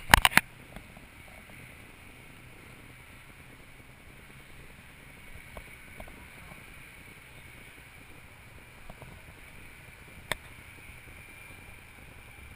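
Steady outdoor background noise, with a quick cluster of knocks at the very start and a single sharp click about ten seconds in, typical of handling a moving camera.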